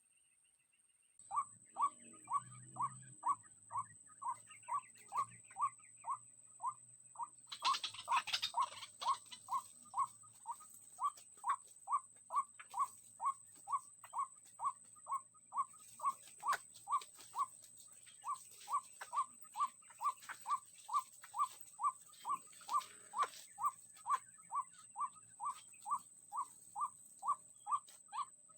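White-breasted waterhen call, most likely a lure recording played through a small speaker, repeated in an even rhythm about twice a second, with one short pause in the middle. A steady high whine runs underneath, and a brief rustle comes about eight seconds in.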